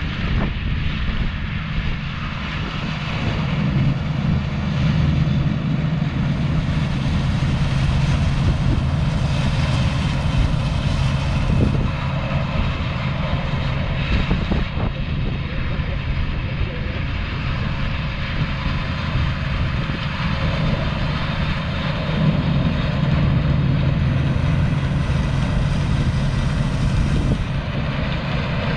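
Claas Dominator 85 combine harvester running steadily while harvesting wheat: a constant machine drone with a strong low hum from the engine and threshing works.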